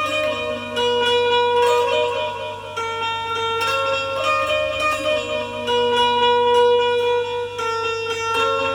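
Indian banjo (bulbul tarang) playing a slow ghazal melody instrumentally, in long held notes over a steady low hum.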